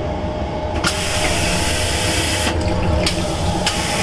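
Shinkansen toilet flushing: a loud hissing rush starts about a second in and lasts about a second and a half, followed by two shorter hissing bursts near the end. The steady low rumble of the moving train runs underneath.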